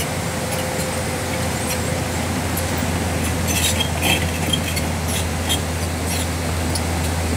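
Sunward excavator's diesel engine running at a steady idle over the rush of the river, with a few light clinks about halfway through.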